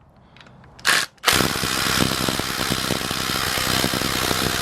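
Cordless impact wrench undoing an oil pan bolt: a short trigger blip about a second in, then running continuously with rapid hammering.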